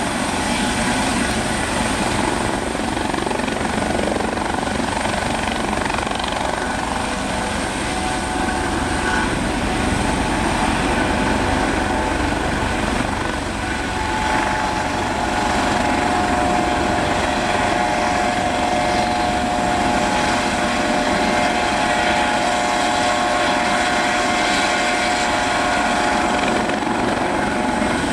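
Aérospatiale AS365N2 Dauphin helicopter with its twin turboshaft engines, main rotor and Fenestron tail rotor running, as it settles from a low hover onto the pad and keeps running on the ground. The noise is steady, and a higher whine joins in about halfway.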